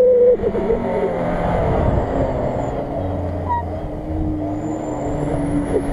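Subaru Forester's flat-four engine driving across mud. A high rev note drops away in the first half second, then the engine runs at steady revs.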